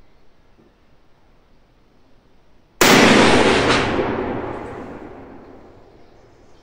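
A single rifle shot from a Mauser bolt-action rifle chambered in .300 Savage, about three seconds in. The loud report rings on and dies away slowly over about three seconds under the roofed firing line.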